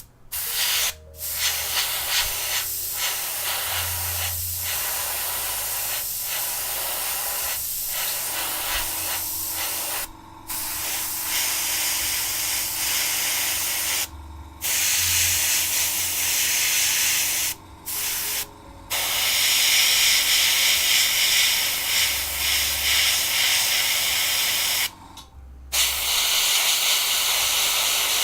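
Airbrush spraying metallic paint: a steady hiss of air and paint that stops briefly several times, as the spray is started and stopped.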